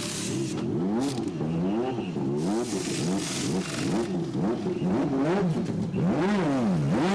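Turbocharged Honda V6 of a 1987 Lotus 99T Formula One car blipped up and down about twice a second as it sits in the pit box during a wheel change, with short hisses over it.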